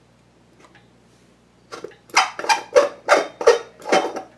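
A 40-watt incandescent bulb being unscrewed from a porcelain lamp socket: after a quiet start, a run of short gritty scraping twists, about three a second, begins about two seconds in.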